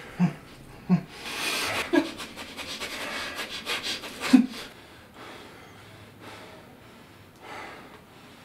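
A man breathing hard and fast in a struggle: two short grunts, then about three seconds of heavy, hissing breaths with more grunts, which die away after about four and a half seconds.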